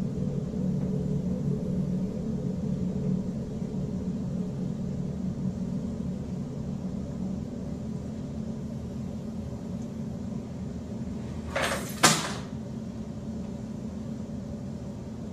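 Steady low hum in a small room, broken about twelve seconds in by one short, sharp bang.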